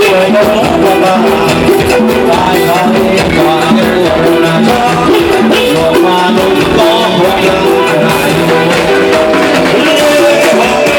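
Thai retro ramwong dance-band music playing steadily, with a sung melody over the band.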